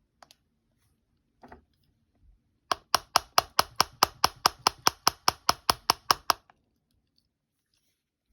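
An iPhone 6s being knocked repeatedly against a hard surface: a fast, even run of about eighteen sharp knocks, roughly five a second, lasting about four seconds, after two faint clicks. It is an attempt to jolt a phone that won't boot back into working.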